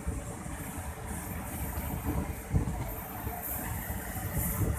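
Indian Railways passenger train rumbling steadily, with a few thumps; the loudest comes about two and a half seconds in.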